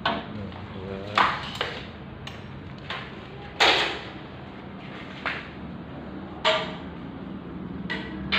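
A series of sharp knocks and clacks at irregular intervals, several with a brief ringing tone, from hard objects being handled, over a low steady hum. The loudest come about a second in and near the middle.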